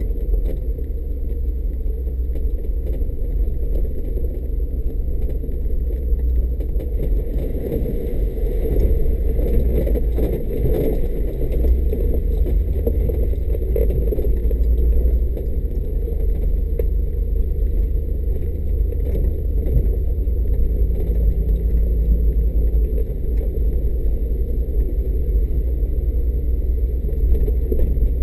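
Mercedes G500's V8 running at low speed as the vehicle crawls along a rough dirt track, a steady low rumble.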